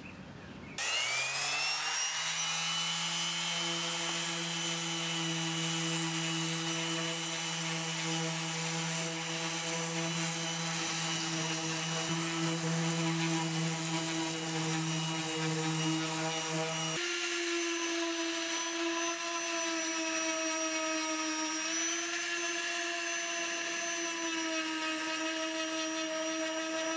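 Electric random orbital sander starting up about a second in, its whine rising as it spins up to speed, then running steadily while its 80-grit disc sands cured body filler. About two-thirds of the way through, its tone changes abruptly.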